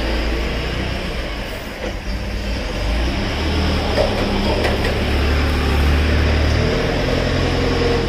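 A steady low mechanical rumble, like an engine running, with a slowly wavering pitch and a few small clicks.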